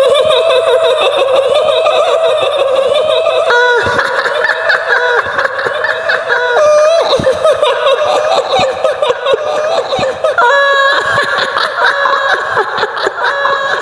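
Shrill, high-pitched woman's laughter, the wavering cackle of the kuntilanak ghost, held without a break; higher-pitched laughing layers join about four seconds in and again near the eleven-second mark.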